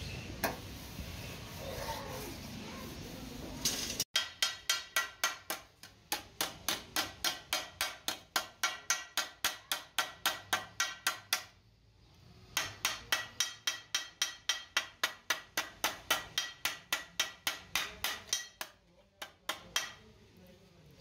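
Hand hammer striking a sheet-metal strip held on a steel block, in rapid runs of ringing metallic blows at about four a second, shaping the strip. The blows start about four seconds in, stop for about a second near the middle, and end with a few scattered strikes.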